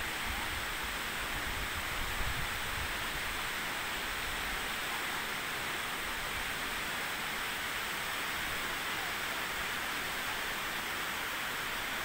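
Yoro Falls, a tall single-drop waterfall, pouring into its pool with a steady, even rushing hiss.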